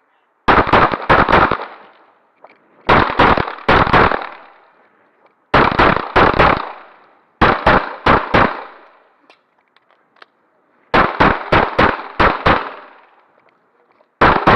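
Handgun fired in quick strings of several shots each, with pauses of one to three seconds between strings, as in an action pistol course of fire. A new string begins near the end.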